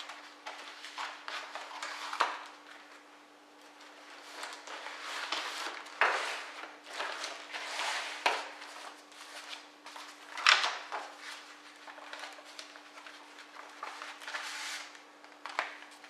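Paper rustling as sheets and receipts are pulled from a cardboard accordion file and handled, with a few sharp taps as bundles and the folder are set down on a wooden tabletop; the loudest tap comes about ten seconds in.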